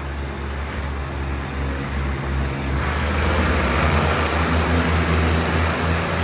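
Hitachi RHN diesel railcar running: a steady low engine hum with wheel-and-rail rushing noise that grows louder about three seconds in.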